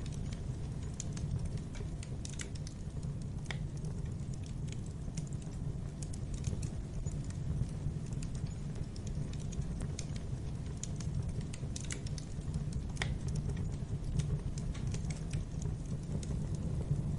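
Wood fire crackling: irregular small pops and snaps, a few sharper ones among them, over a steady low rumble from the burning logs.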